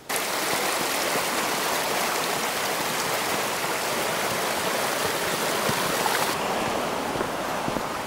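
Mountain creek rushing steadily, an even water noise that turns slightly duller about six seconds in.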